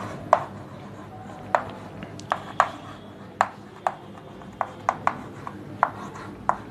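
Chalk writing on a blackboard: about a dozen sharp, irregularly spaced taps and clicks as the chalk strikes the board with each letter.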